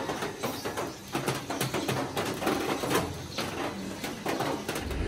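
A quick, irregular run of light clicks and taps. Near the end a low, steady engine rumble sets in.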